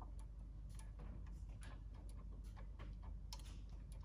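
Light, irregular clicks and ticks, a few a second, from the KTM 50SX's rear brake pedal and linkage being worked by hand to check its free play.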